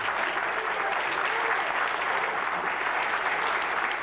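Theatre audience applauding: a dense, steady patter of many hands clapping.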